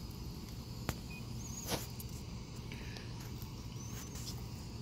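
Steady low rumble of an idling engine, with a sharp click about a second in and a louder knock just before two seconds. Short high chirps sound three times.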